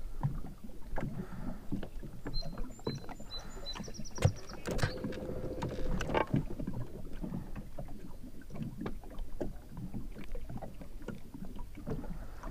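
Small waves lapping and knocking against the hull of a small boat, with light wind and a few sharper knocks. A short run of high beeps comes a couple of seconds in, and a brief steady hum about five seconds in.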